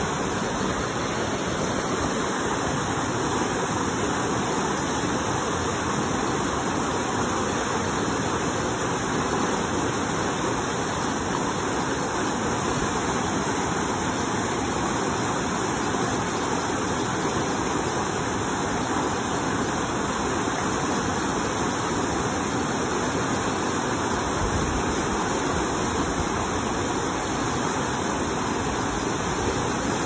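A rain-swollen mountain creek rushing over rocks and small cascades: a steady, unbroken wash of whitewater.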